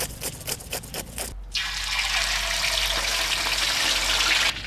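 Scales being scraped off a whole raw fish in short, rasping strokes, about four a second. About a second and a half in, this cuts to hot oil sizzling steadily around a whole fish frying in a wok.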